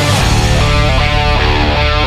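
Background rock music with distorted electric guitar, playing a run of changing notes over a steady bass.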